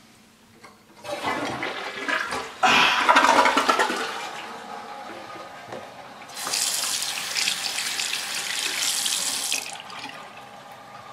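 A toilet flushes, the rush of water loudest for a second or two and then fading. Then a bathroom sink tap runs for about three seconds with hands under it, and stops.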